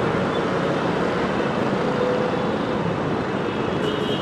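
Steady noise of dense city street traffic, with engines running and tyres on the road.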